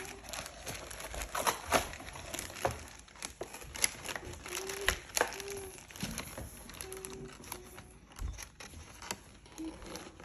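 Plastic and cardboard packaging crinkling and rustling with scattered sharp clicks and knocks, as a boxed bike is unpacked.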